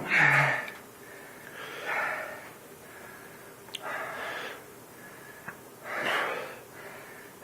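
A man breathing hard and heavy from the exertion of doing burpees, with a loud breath about every two seconds.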